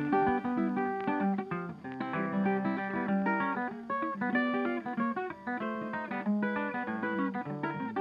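Background music: a quick, plucked acoustic guitar tune.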